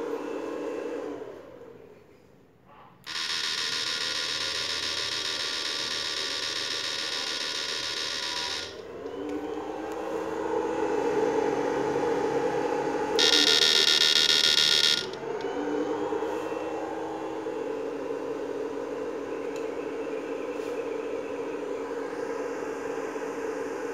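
SUSAN-1030sMP electrofishing inverter running with a steady electronic buzz. It drops out about a second and a half in. It then gives a loud, high-pitched whine from about 3 to 9 seconds and again from about 13 to 15 seconds, and its tone glides as each whine ends.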